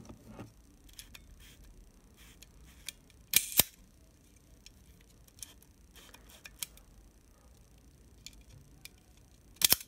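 Leica IIIG's cloth focal-plane shutter test-fired twice, some six seconds apart, each release a pair of sharp clicks in quick succession. Between the releases come faint clicks and taps from the camera body being handled.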